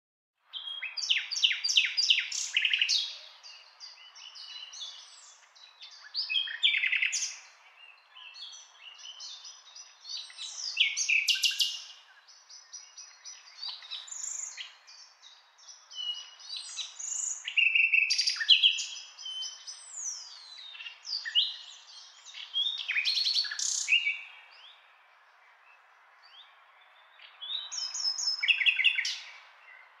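Common nightingale singing: varied phrases of rapid repeated notes, trills and whistles, separated by short pauses, with a longer pause near the end.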